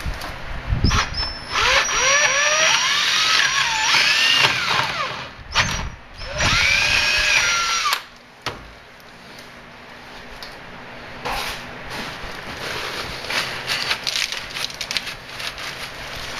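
Electric drill boring out the bolt hole in a Jeep ZJ's Dana 30 steering knuckle arm to take 5/8-inch hardware, the bit squealing through the steel with a wavering pitch in two runs of about four and two seconds. After that the drill stops and only quieter clicks and handling noise remain.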